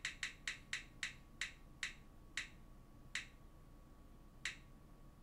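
Tick sound effect of a spin-the-wheel app on a smartphone, from the phone's speaker, as the wheel slows to a stop: clicks at about four a second that spread out to single ticks over a second apart, the last one about four and a half seconds in.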